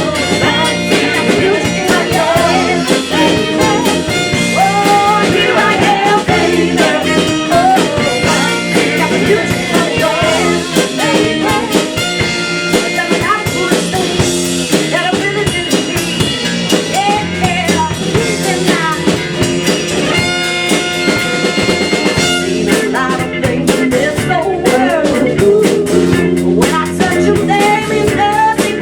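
A live band playing with drums, a singer's voice over the top.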